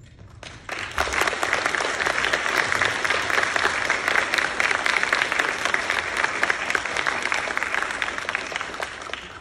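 Audience applauding: dense hand-clapping that starts about a second in and dies away near the end.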